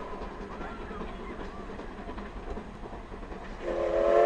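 Japanese C11-class steam tank locomotive (C11 325) running toward the listener with its train, a steady rumble with light rail clicks. About three and a half seconds in, its steam whistle starts a loud, steady chord that carries on through the end.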